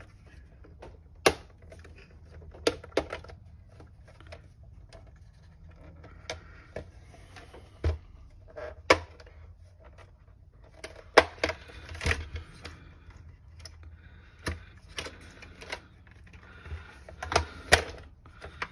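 Plastic snap clips and the hard plastic case of a car's digital instrument cluster clicking and knocking as they are worked loose by hand: an irregular string of sharp clicks, the loudest a little past the middle, with the rustle of the case being handled between them.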